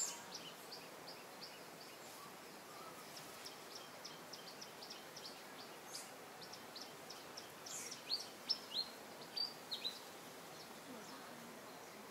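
A bird chirping in a quick, even series of short high notes, about three a second, then a few louder, downward-sweeping chirps a little after the middle.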